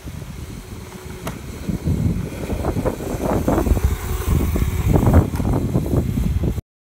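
Small electric scooter riding past close by on asphalt, its motor and tyres heard under an irregular, gusty rumble of wind on the microphone that grows louder about two seconds in.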